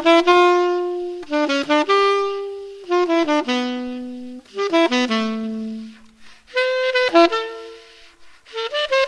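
Solo C melody saxophone, a silver-plated 1923 Buescher True Tone with a metal Otto Link mouthpiece, playing a choro melody unaccompanied. It plays quick runs of notes, each phrase ending on a held note, with short breaths between phrases.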